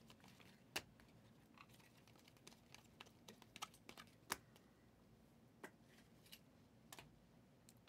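Faint, irregular clicks and taps of 2023 Prizm football trading cards being flipped through and set down on piles, against near silence.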